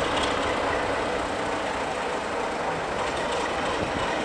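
Class 33 diesel locomotive's Sulzer eight-cylinder engine running steadily as the locomotive moves along the platform with its train.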